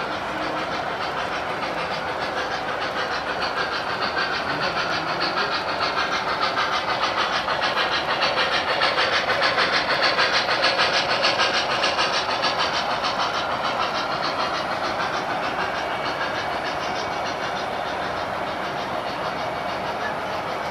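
Model steam train pulling a long string of refrigerator cars running past on the layout's track: a steady rumble with rapid, even clicking of the wheels on the rails, growing louder to a peak about halfway through as the train passes close by, then fading.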